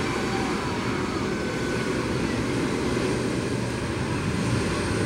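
Airbus A300-600ST Beluga's two General Electric CF6-80C2 turbofan engines running steadily as the aircraft taxis, a constant jet rumble and hiss.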